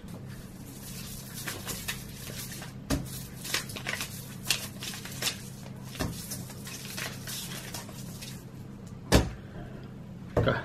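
Sheets of paper being slid and shuffled across a glass tabletop: scattered taps and scrapes, with a louder knock near the end, over a steady low hum.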